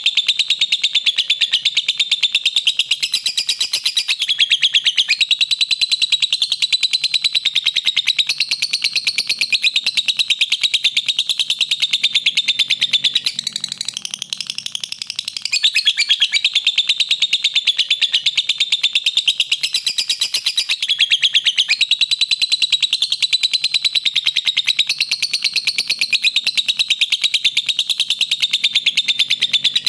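Lovebird song: a continuous, rapid, high-pitched chattering trill that eases off briefly about halfway through, then carries on.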